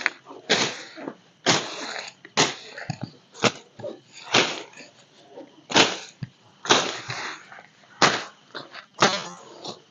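Machete (parang) slashing through brush and grass, a sharp swishing chop about once a second, nine or so in all.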